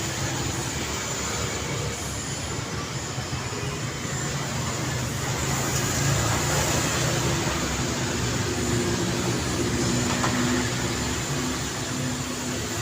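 Steady road traffic: a continuous wash of tyre and engine noise, with the low hum of a heavier vehicle's engine growing louder through the middle.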